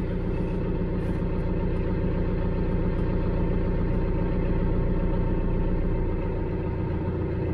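Branson 5520CH tractor's diesel engine running steadily at idle, heard from inside the closed cab.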